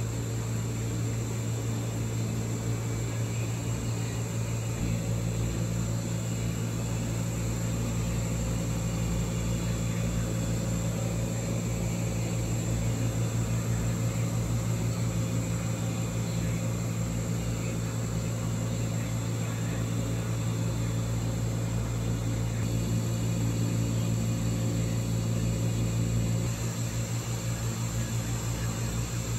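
Steady low mechanical hum with a faint high whine from the aquarium's machinery, such as its pumps and ventilation.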